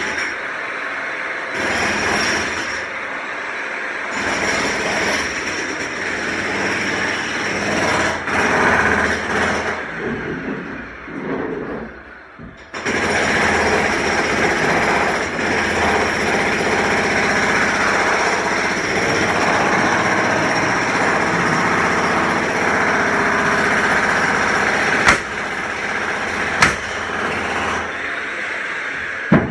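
Construction-site machinery making a dense, steady mechanical din. It thins out and briefly drops away a little before the middle, then cuts back in abruptly, with a few sharp metallic knocks near the end.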